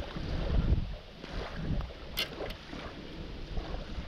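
Wind buffeting an action camera's microphone in an uneven low rumble, with a sharp click about two seconds in and a smaller one just after.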